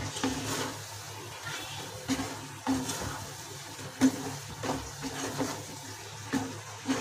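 Wooden spatula stirring onion and capsicum pieces through thick, wet masala in a frying pan. The strokes are irregular, wet and scraping, about one every half second to a second.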